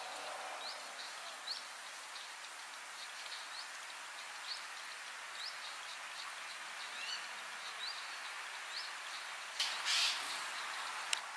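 Short, high, rising chirps, irregular, roughly one every half second to second, over a steady outdoor hiss. A brief rush of noise comes near the end.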